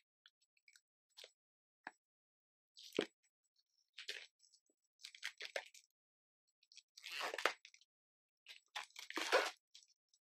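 Plastic shrink-wrap crinkling in short, irregular bursts as it is peeled off a cardboard card-game box, the longest crackles about seven and nine seconds in.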